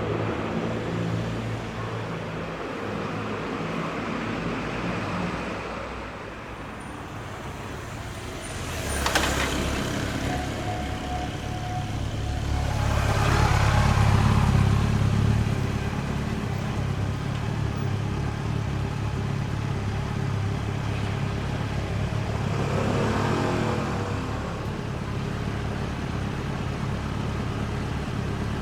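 Road traffic at a city intersection: vehicles driving past, with engine rumble that swells to its loudest about halfway through as a vehicle passes close, and a smaller pass later. A single sharp click about a third of the way in.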